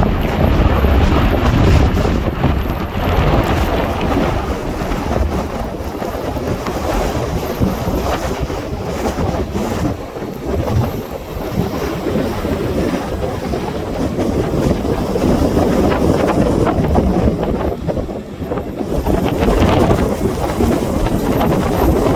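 Strong gusty wind buffeting the microphone: a loud, rough rumble that eases briefly twice.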